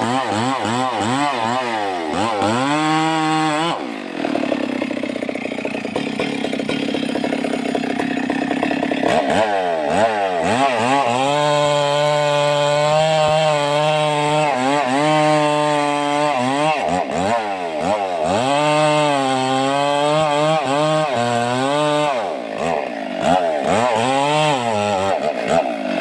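Stihl MS 382 two-stroke chainsaw revved up and down over and over, with stretches held at high speed, while cutting wood.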